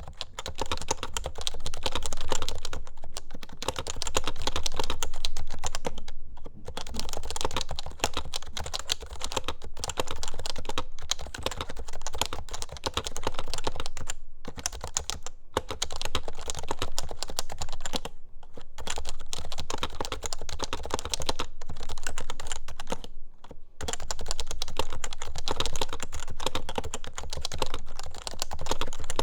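Typing on an HHKB Hybrid keyboard with Topre switches: a steady run of keystrokes, broken by a few short pauses.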